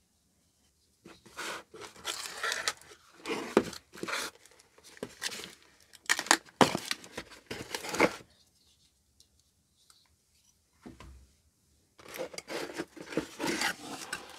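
An Opinel carbon-steel folding knife slitting the packing tape on a cardboard box: a run of short scraping, tearing strokes, then a pause. Near the end, cardboard rubbing and scraping as the flaps are lifted and the box is opened.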